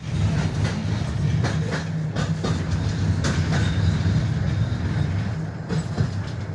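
KTM tram running along the line, heard from inside the car: a steady low rumble from the running gear with irregular knocks and clatter as the wheels pass over the track.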